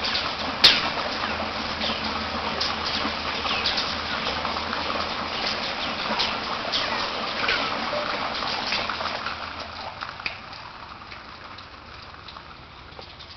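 Water falling and splashing inside a newly drilled deep well: a steady rush with many quick drips and splashes. Under it lies the sound of water running at the bottom, which the owner takes for a very good sign. There is a sharp click about a second in, and the sound fades over the last few seconds.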